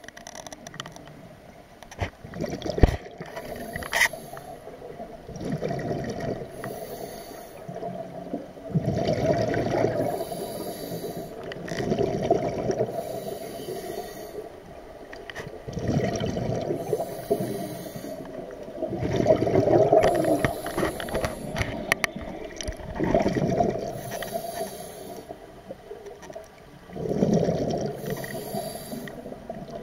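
Scuba diver breathing through a regulator underwater: exhaled air bubbles out in a gurgling burst every three to four seconds, with a few sharp clicks in the first few seconds.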